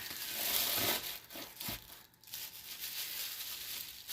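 Plastic bubble-wrap bag crinkling and rustling as it is opened and handled, densest in the first second, then in irregular rustles.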